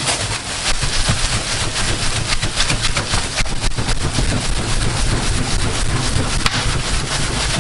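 A cloth waved rapidly by hand over the charcoal in a barrel smoker, a steady rush of moving air with quick flapping strokes, blowing on the microphone. It is fanning the dying coals back to flame.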